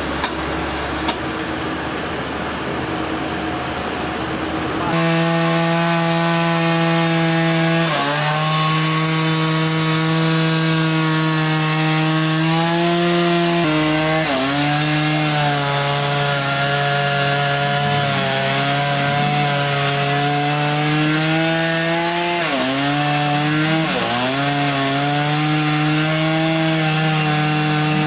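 Sawmill saw running as it cuts through a log, a steady machine note whose pitch sags briefly and recovers several times as the blade takes load. For the first few seconds there is a rougher, noisier sawing sound before the steady note comes in.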